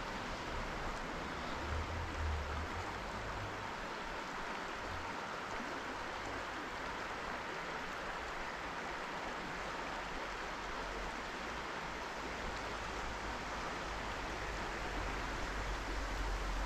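Trout stream water flowing with a steady rush.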